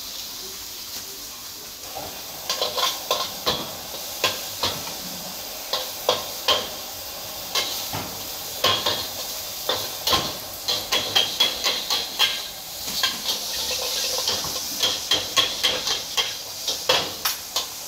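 Noodles sizzling and hissing in a wok over a high flame while a metal ladle and spatula clank rapidly against the pan as they are stir-fried. The clanking starts about two and a half seconds in.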